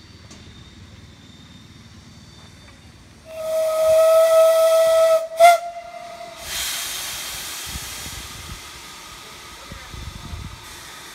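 Steam locomotive's whistle sounding one steady note for about three seconds, broken briefly near the end, followed by a loud hiss of escaping steam that slowly fades.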